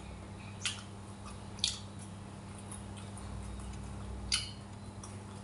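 A person eating with chopsticks and a spoon: three short clicks, under a second in, at about a second and a half, and a little after four seconds, over a steady low hum.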